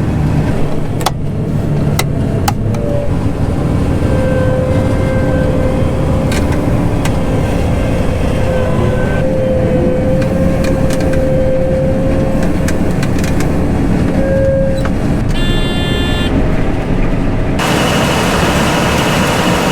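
Combine harvester running steadily with a heavy low rumble and a steady whine through the middle, with scattered clicks and a burst of hiss near the end.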